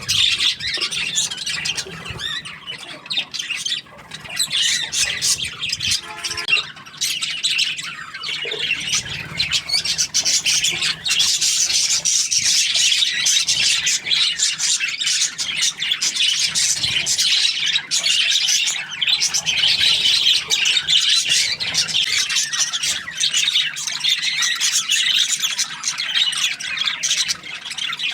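Budgerigars chirping and chattering nonstop, a dense stream of rapid, high-pitched squawky chirps that grows louder about nine seconds in.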